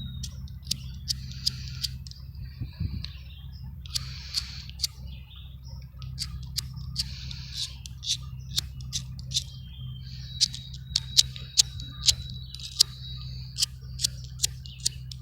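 Irregular sharp clicks, a few a second and louder in the last few seconds, with short bursts of hiss in between.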